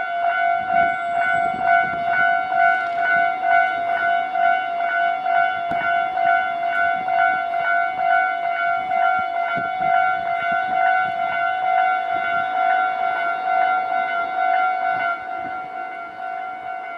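Japanese railway level-crossing warning bell ringing in a steady repeating clang, about two strikes a second. It gets a little quieter near the end.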